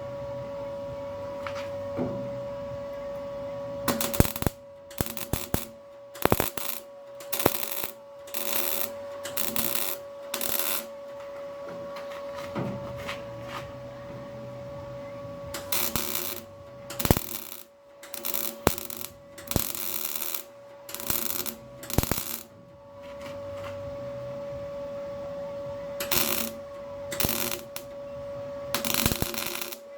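MIG welder tack- and stitch-welding sheet steel floor panel: short bursts of arc crackle, each under a second, one after another with pauses between, over a steady hum.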